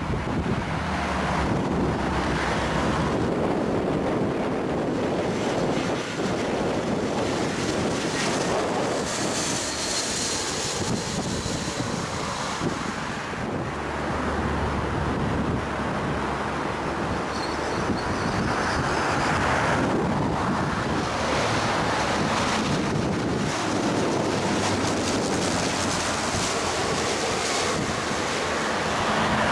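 Strong wind buffeting the microphone over the rumble of jet airliners on approach and landing, with a higher-pitched engine hiss rising twice as aircraft pass.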